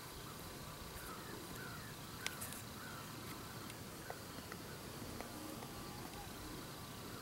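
Quiet field ambience with scattered short bird chirps and calls, and a single sharp click a little over two seconds in.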